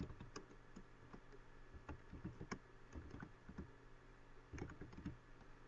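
Faint typing on a computer keyboard: irregular, scattered keystrokes.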